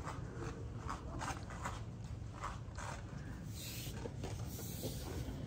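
Footsteps and clothing rustle of a person walking, two to three soft steps a second, over a steady low background din.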